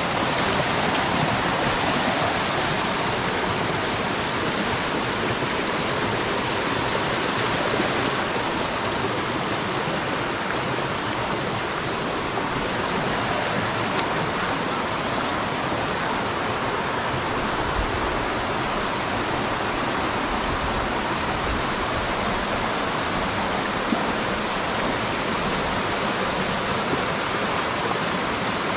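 Steady rush of a waterfall, water pouring and splashing over rock tiers in an even, unbroken roar of noise.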